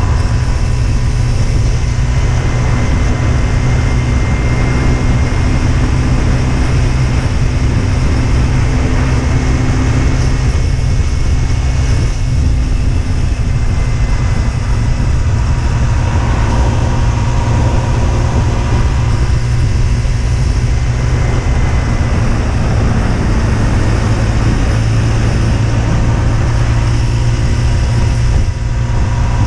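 Husqvarna Svartpilen 125's single-cylinder engine running steadily while riding, over a heavy low rush of wind on the microphone; the engine's pitch shifts a little now and then with speed.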